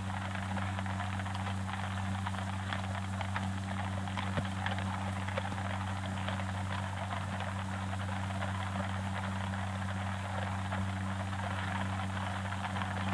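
Steady low hum under a continuous crackle and hiss, the surface noise of an old film soundtrack.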